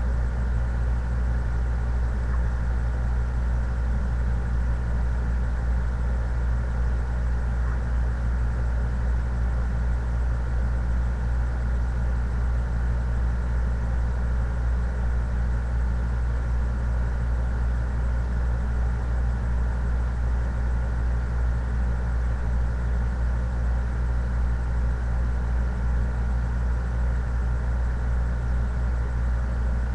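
Steady low hum that does not change.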